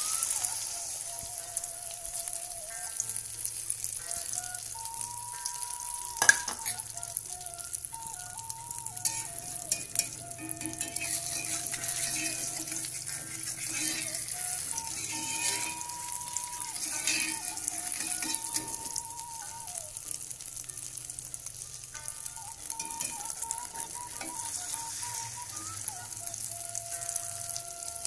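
Beaten egg frying in hot oil in a wok: a steady sizzle that set in as the egg hit the oil, with a single sharp knock about six seconds in.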